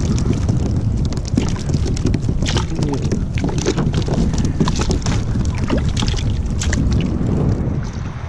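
Wind buffeting the microphone, with quick irregular slaps and splashes as cast-netted pilchards flop on a paddleboard's deck pad and are dropped into a bucket of water.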